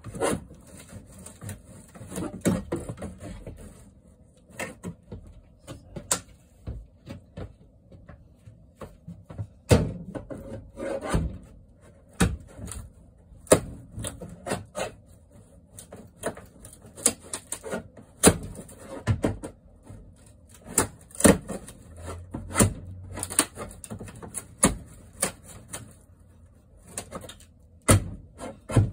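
A wooden cabinet being pried loose with a flat metal hand tool: irregular sharp knocks and taps with scraping of wood and metal between them, some a second or two apart.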